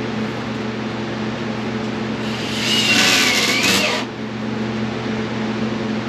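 Ryobi cordless drill driving a 2-inch wood screw through a 2x4 into the wall once, for about a second and a half midway, its motor whine dipping in pitch and coming back up as the screw bites. Underneath is a steady mechanical hum.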